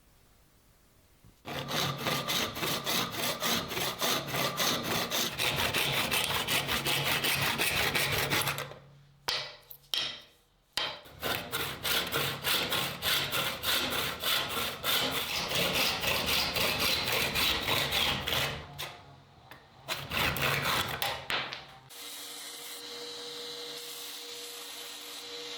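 Rapid back-and-forth abrasive strokes on the knife blade, several a second, in three spells with short pauses between. Near the end the strokes stop and a steady hum with a held tone takes over.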